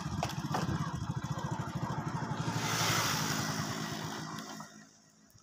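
Motorcycle engine running with a fast, even putter, then dying away to near silence about five seconds in as the bike is brought to a stop and parked.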